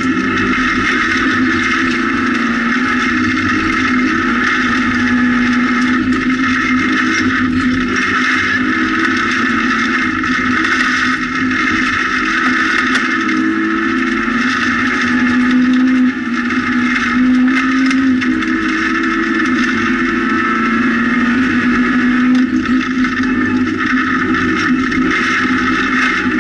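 Rally car engine running at high revs, heard from inside the cockpit, its pitch rising and falling with throttle and gear changes, over a constant hiss of tyres and gravel. There is a brief lift in the engine about sixteen seconds in.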